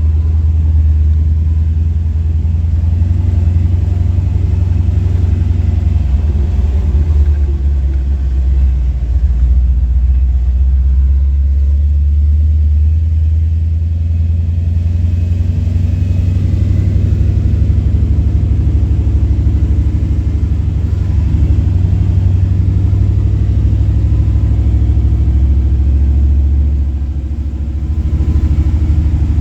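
Jeep engine running under way, a steady low drone and rumble; the sound dips briefly near the end.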